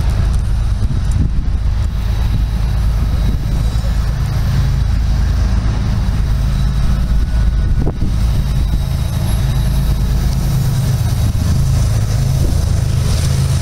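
Diesel locomotive approaching: a steady low engine rumble, with its engine hum growing clearer over the last few seconds.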